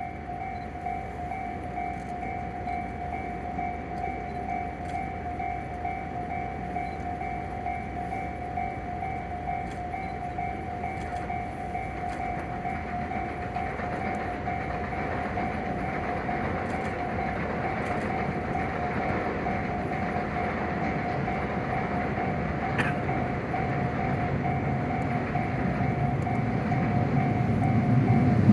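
Japanese level-crossing warning bell ringing continuously in a rapid, even repeating pattern. Underneath, the rumble of an approaching train builds steadily louder toward the end.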